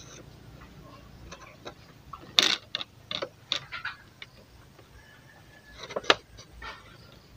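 Scattered light clicks and taps of a plastic ruler and marker pen being handled against an empty plastic bottle, with a short louder crackle of the bottle's thin plastic about two and a half seconds in and a sharp click about six seconds in.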